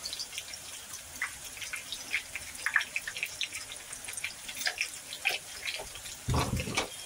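Cumin seeds and slit green chillies frying in hot oil in a steel kadhai: a soft steady sizzle with irregular small crackling pops. A brief louder thud comes near the end.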